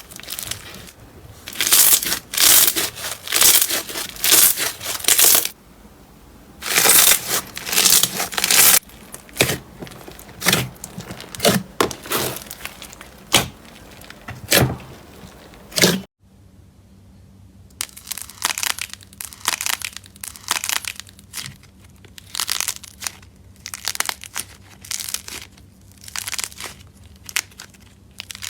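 Slime being squeezed, pressed and pulled by hand, in repeated bursts of crackling clicks and sticky noise. About sixteen seconds in the sound cuts off, then the same kind of handling resumes more quietly.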